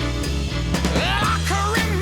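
Rock music with a steady bass and drum beat; a singing voice comes in about a second in.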